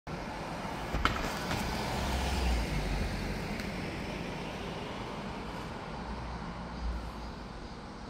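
Road traffic noise: a steady hiss of passing vehicles with a low rumble that swells as one goes by about two seconds in and again near the end, and a sharp click about a second in.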